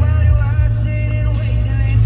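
Music with a bending melody line, over a steady low rumble like a vehicle's road noise.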